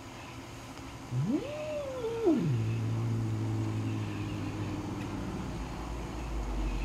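Angry domestic cat yowling: about a second in, one long moan rises steeply, holds and then falls, sinking into a low held growl that lasts a few seconds. It is a hostile warning cry at a dog.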